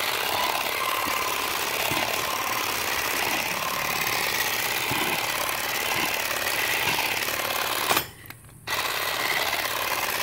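Earthwise 3.6-volt cordless grass shear running, its motor-driven reciprocating blade clipping grass. The motor stops for under a second about eight seconds in, then runs again.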